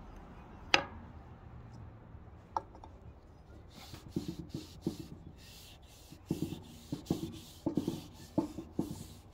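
A cloth rag rubbed back and forth over the board of a wooden tortilla press, in a run of uneven strokes starting about four seconds in. A sharp knock comes near the start, with a lighter tap a couple of seconds later.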